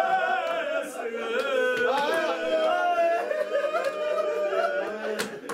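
A man's unaccompanied voice chanting a sung Punjabi lament, drawing out long wavering notes. The voice breaks off briefly near the end.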